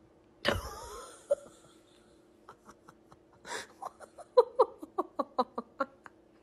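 A soft thump about half a second in as a sofa cushion drops, then a person laughing in a rapid run of short bursts, about five a second.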